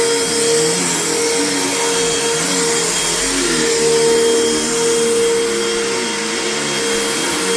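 Vacuum cleaner running steadily while being pushed over carpet, a loud continuous motor hum whose lower tones waver up and down.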